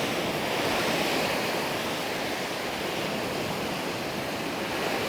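Gentle surf: small waves washing steadily onto a sandy beach.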